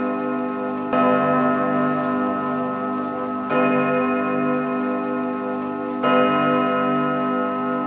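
Instrumental background music: sustained chords that change about every two and a half seconds, over a clock-like ticking.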